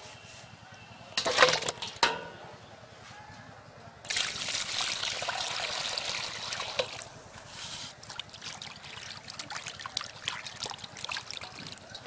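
A brief burst of clattering from the steel bowls about a second in, then water poured into a steel bowl of raw chicken pieces, followed by hands sloshing and splashing the pieces around in the water to wash them.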